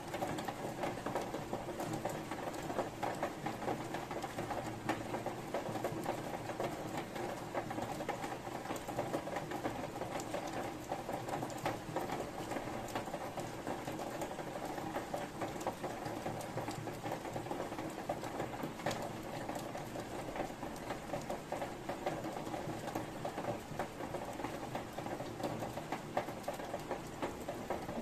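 Steady rain falling, heard as an even hiss made of many small drop impacts, with no thunder.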